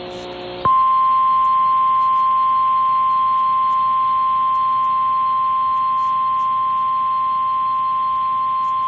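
Emergency alert attention tone: a single steady 1050 Hz alarm tone that starts well under a second in and holds unbroken, announcing a severe thunderstorm warning. Before it, a brief hissy stretch with a few lower steady tones.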